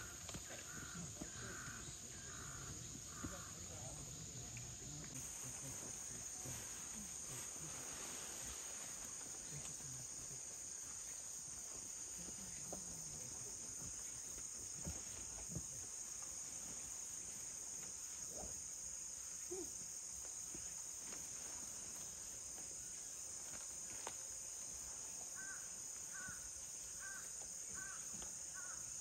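Steady high-pitched insect chorus, growing louder about five seconds in, with a short run of quick repeated chirps near the start and again near the end.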